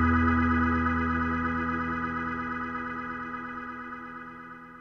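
Background music: one sustained chord held without change, fading steadily away and nearly gone by the end.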